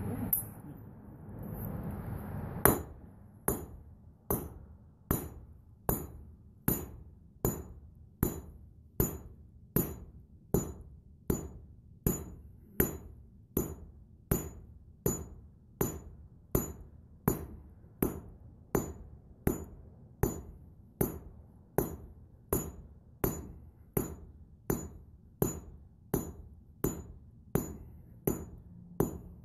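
Hand hammer striking a thin steel rod on an anvil in steady, evenly spaced blows, a little more than one a second, each with a bright ringing ping. The steel is being hammer-heated from cold toward red hot. The blows begin about two and a half seconds in.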